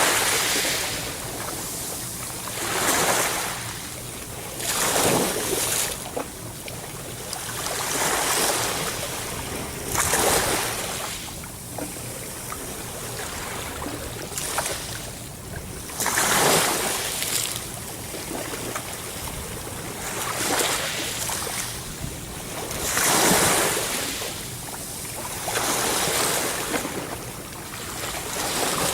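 Sea waves washing in one after another: a steady rushing of surf that swells to a loud surge every two to three seconds and falls back between.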